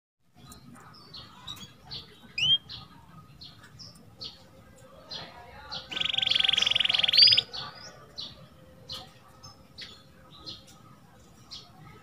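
Domestic canary singing: scattered short chirps and whistled notes, then a loud, fast rolling trill about six seconds in that lasts about a second and a half, followed by more scattered chirps.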